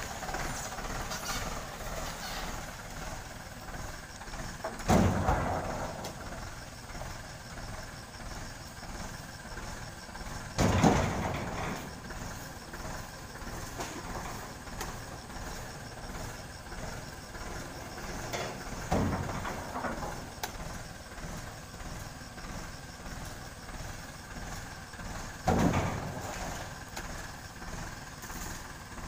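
Eurostar 9540 tractor engine idling steadily while oil palm fruit bunches are thrown into its steel trailer, landing with four heavy thuds several seconds apart. The loudest thud comes about a third of the way through.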